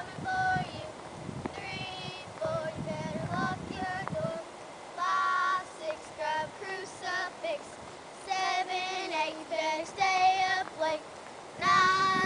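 High-pitched voices in short notes with wavering pitch, coming in a rapid run and loudest near the end.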